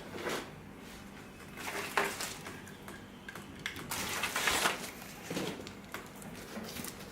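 Handling and unpacking a car-stereo wiring harness: irregular rustling of its packaging with a few light knocks, loudest about two seconds in and again around four seconds in.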